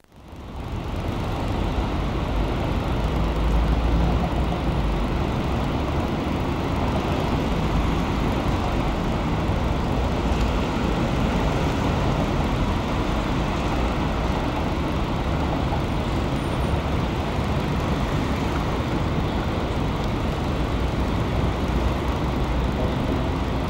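Steady low rumble of vehicle engine and road noise, even throughout with no distinct events.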